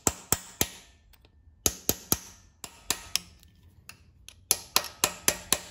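Hammer tapping a steel punch against a rusted, drilled-out broken exhaust manifold bolt in a 5.3L LM7 V8 cylinder head, each strike a sharp metallic tap with a short ring. The taps come in small clusters, then a quicker run of about five a second near the end, as the collapsed bolt starts to turn in its hole.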